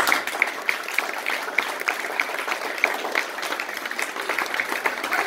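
Audience applauding: many hands clapping continuously, with individual sharp claps standing out.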